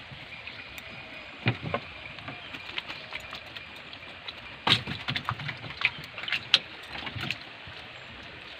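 A wet nylon cast net with its sinkers being handled in a wooden dugout canoe while fish are picked out: scattered knocks and taps on the hull with water dripping and sloshing, busiest about midway, over a faint steady high tone.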